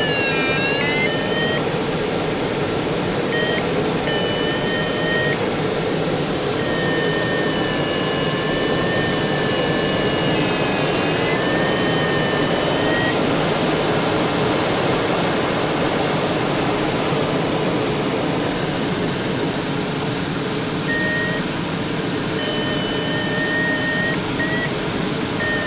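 Steady rush of airflow around the canopy of a Ka8 glider in flight. An electronic tone, typical of an audio variometer, sounds over it, wavering in pitch near the start, dropping out for several seconds in the middle and returning near the end.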